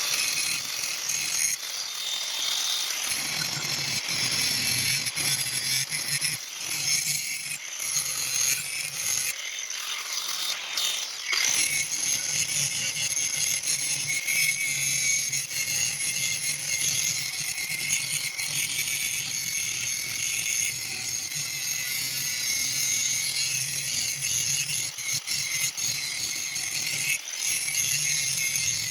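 Power grinder grinding down a welded grade 8 steel bolt, a steady grinding hiss over a low motor hum that cuts off at the end.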